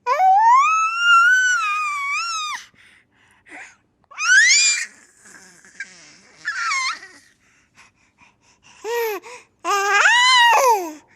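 A baby's high-pitched squeals of delight: one long wavering squeal, then shorter rising and falling squeals with short gaps, and another long one near the end.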